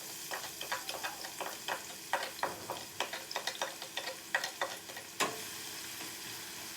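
Chopped onion and garlic sizzling in hot oil as they are stir-fried (sautéed), with frequent short clicks and scrapes of the utensil against the pan that stop about five seconds in, leaving the steady sizzle.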